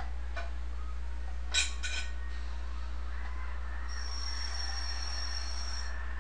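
Steady low electrical hum on the broadcast audio feed, with a few sharp clicks early and a thin high steady tone for about two seconds near the end.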